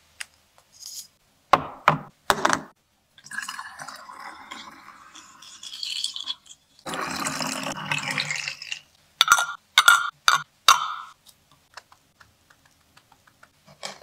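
Chocolate milk pouring through a funnel into small glass milk bottles, in two stretches of a few seconds each. Short taps of glass bottles being handled come first, and a quick run of ringing glass clinks follows the pouring.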